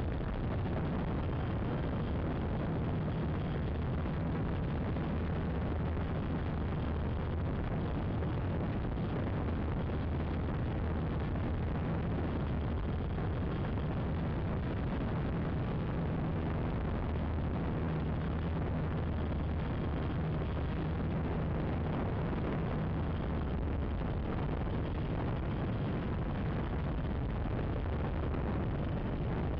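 Gaui 330X quadcopter's motors and propellers running steadily in flight: a continuous low drone whose pitch wavers slightly, under heavy rushing air noise on the microphone.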